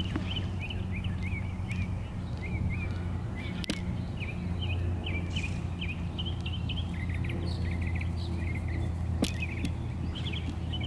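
Small birds chirping, a rapid string of short high calls one after another, over a steady low hum. There are two sharp clicks, about four seconds in and near nine seconds.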